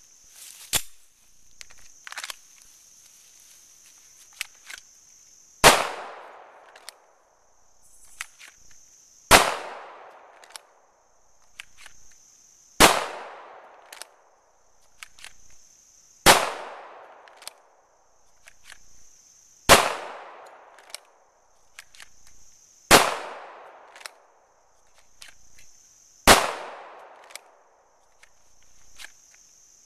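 Springfield XD Tactical .45 ACP pistol firing single shots, seven in all, about three and a half seconds apart, each drawn fresh from the holster, with a short echo after each shot. Smaller clicks come between the shots, over a steady high drone of insects.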